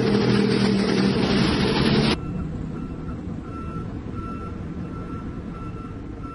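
Heavy truck and road traffic passing loudly. About two seconds in this cuts abruptly to a quieter diesel truck engine running, over which a reversing alarm beeps again and again.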